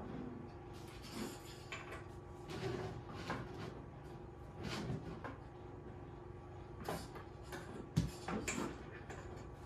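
Aluminium frame rails of an XTool D1 laser engraver being handled and fitted together: scattered clicks, knocks and sliding scrapes of metal parts, the loudest knock about eight seconds in.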